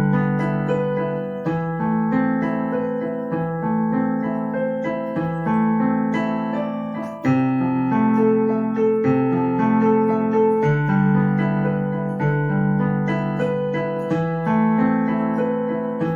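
Piano playing a slow, flowing piece of repeating broken chords over sustained bass notes that change about every one and a half seconds.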